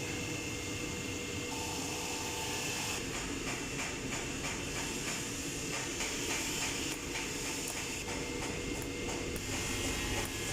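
Welding on exhaust parts: a steady hiss and hum with a fast, irregular crackle from about three seconds in.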